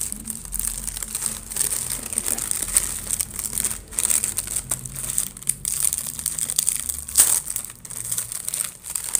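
Metallised foil biscuit bag crinkling and crackling as hands pull it open and handle it, with one sharper crackle about seven seconds in.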